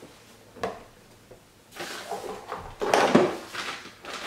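Handling of packaging: a light knock, then a paper shopping bag and cardboard boxes rustling and knocking as items are set down and taken out, loudest in the middle.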